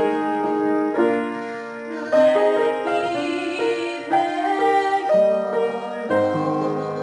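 Instrumental keyboard music: slow, held chords that change about once a second.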